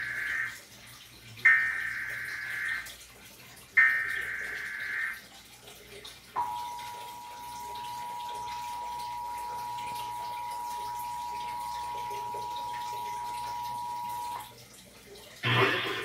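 Emergency Alert System tones from a television: three harsh, buzzing SAME header data bursts of about a second each, the first already under way, then the steady two-tone EAS attention signal held for about eight seconds. They mark the start of an EAS alert, here a required monthly test. Louder sound from the set starts again near the end.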